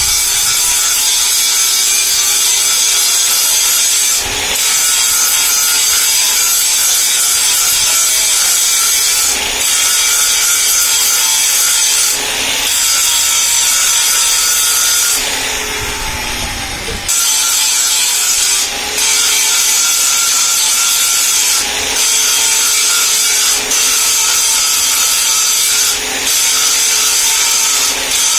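Power tool grinding, running loud and steady in long passes that break off briefly every few seconds, with a longer, quieter dip about fifteen seconds in.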